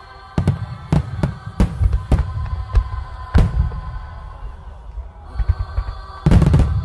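Fireworks shells bursting: about ten sharp bangs spread over the first three and a half seconds, then a dense volley of bangs near the end, the loudest moment. Music with sustained tones plays underneath.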